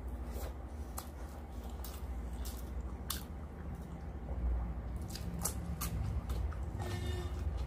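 Close-miked chewing of rice and mutton curry eaten by hand, with wet mouth smacks and scattered sharp clicks, over a low steady hum.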